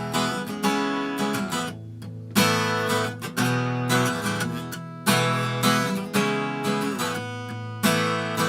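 Acoustic guitar strumming chords in a slow, steady rhythm as a song's instrumental intro, each strum left to ring.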